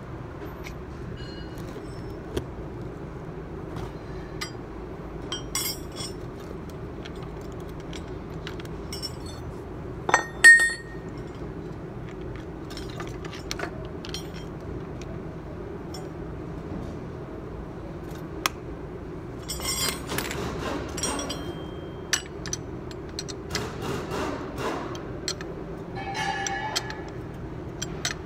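Metal hand tools clinking and clanking on a shock absorber's top mount as a wrench turns its nut, the shaft held with locking pliers, with one loud clank about ten seconds in and busier clatter later on. A steady low hum runs underneath.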